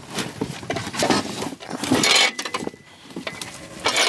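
Irregular scraping, rustling and knocking of a cardboard shipping box and its packing as the heavy metal body of a cement mixer is lifted out of it, in uneven bursts with a few sharp knocks.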